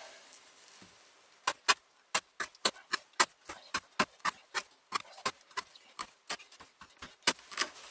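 A carpenter's axe chopping short pieces off a hemp rope laid on a wooden board: a quick run of sharp knocks, about four a second, as the blade cuts through the rope and strikes the board. The knocks start about a second and a half in.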